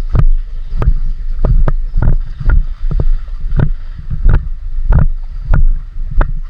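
Low rumble of wind and handling on the microphone, cut by sharp, irregular clicks and knocks about twice a second.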